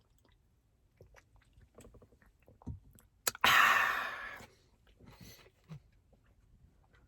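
Man eating a sandwich: soft chewing and mouth clicks, then a loud slurp of tea lasting about a second, starting about three and a half seconds in.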